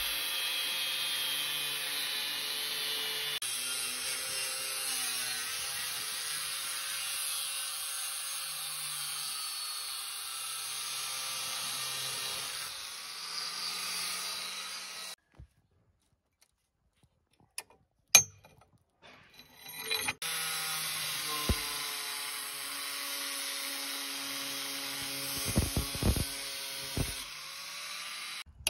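Angle grinder with a cut-off disc cutting through a steel leaf spring, a steady high-pitched grinding hiss. It stops about halfway for a few seconds, with a couple of clicks, then runs and cuts again, with a few knocks near the end.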